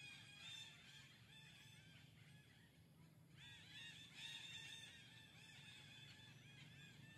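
Faint animal calls: many quick, high chirping notes that rise and fall, pausing about two and a half seconds in and then resuming more densely, over a low steady hum.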